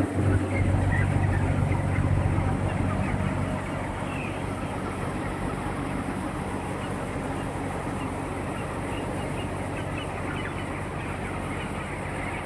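A flock of chickens calling in a poultry shed, many small scattered clucks and chirps over a steady low rumble that is loudest in the first couple of seconds.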